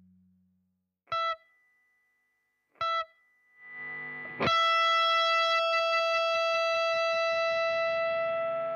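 Electric guitar through distortion effects: three short, clipped high notes about a second and a half apart, then a swell and a sharply struck chord about four and a half seconds in that rings on and slowly fades as the track ends.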